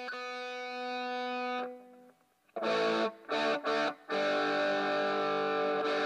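Tokai ES-60 semi-hollow electric guitar played through an amplifier. A single held note rings for about a second and a half and fades. After a short pause come three short strummed chord stabs and then a held, ringing chord.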